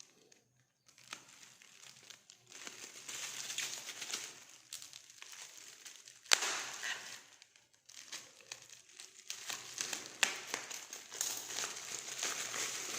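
Plastic packaging crinkling and rustling in stretches as parts are handled, with quiet gaps between, and one sharp click about six seconds in.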